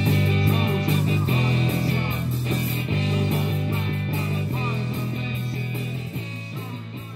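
Live rock band playing, electric guitar over drums, the music fading out gradually.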